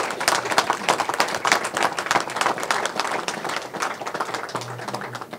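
Applause from a small crowd: many hands clapping quickly and unevenly, thinning out near the end.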